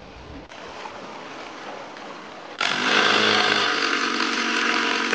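Cordless drill/driver running at a steady pitch for about two and a half seconds, driving a screw into a wooden deck board. It starts suddenly about halfway through and cuts off abruptly.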